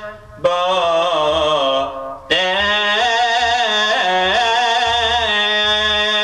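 Male voice chanting a Syriac hymn in long, ornamented melismatic phrases over a steady held drone, breaking briefly near the start and again about two seconds in before the next phrase.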